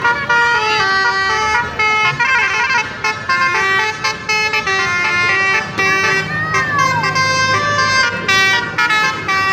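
Indonesian 'telolet' bus horn playing a tune of quick stepped notes as the bus passes, with an engine running low beneath it from about six seconds in.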